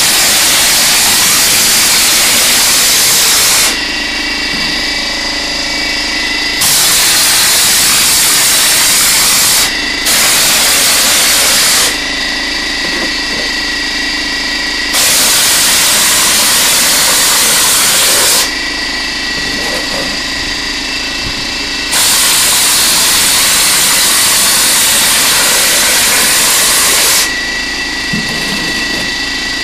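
Stucco hopper gun spraying a cement scratch coat: five loud hissing blasts of air and mortar, each two to five seconds long, that start and stop abruptly as the trigger is worked. Between the blasts an air compressor runs steadily.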